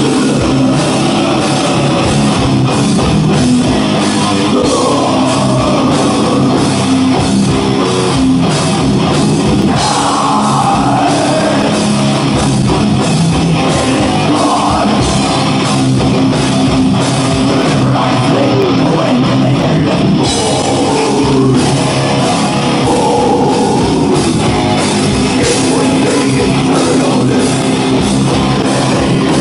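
Heavy metal band playing live at full volume: distorted guitar and Rickenbacker bass over a pounding drum kit, with a vocalist singing into the microphone.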